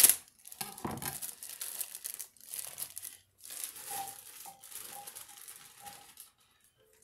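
Plastic bag of baby carrots crinkling and rustling as it is cut open and emptied, the carrots dropping into the crockpot. It stops about six seconds in.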